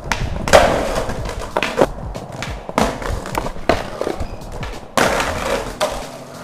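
Skateboard wheels rolling over a tiled floor, with several sharp clacks and knocks of the board hitting the tiles.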